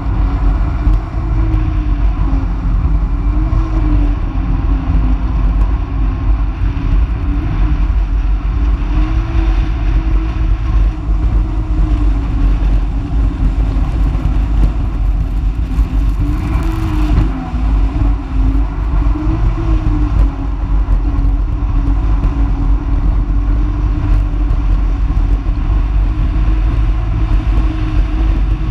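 Small motorized watercraft running at speed across open water: a steady engine drone that rises and falls slightly in pitch over a heavy low rumble of wind and water, with a brief hissy surge about two-thirds of the way through.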